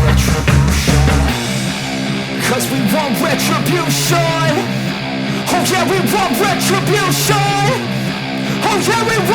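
Background rock music with guitar; the heavy bass drops out about a second and a half in, leaving a wavering melody line over the band.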